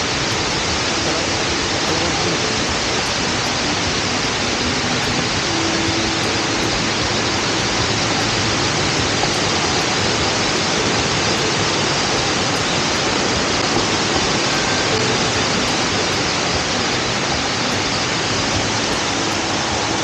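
Waterfall: water falling and cascading over rock, a steady, even rushing noise with no breaks.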